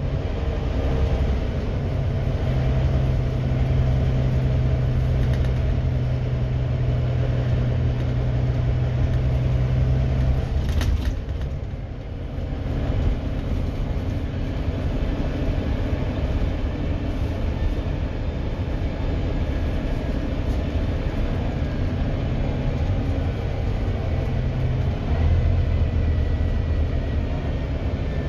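Volvo B9TL double-decker bus's six-cylinder diesel engine pulling under load, heard from the upper deck as a steady low drone with road rumble. The drone eases off briefly about eleven seconds in, then builds again.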